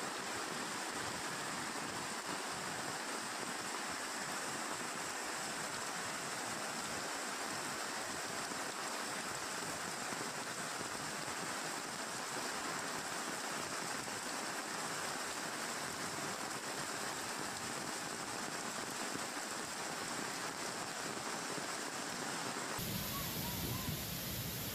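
Steady rushing hiss of heavy rain and flowing floodwater. About two seconds before the end it changes to a deeper, fuller rush, the sound of a muddy, swollen waterfall.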